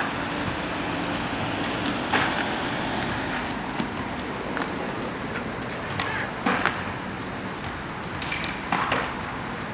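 Street traffic noise as a car drives past, with a few short sharp sounds scattered through it, the loudest about six and a half seconds in and again near the end.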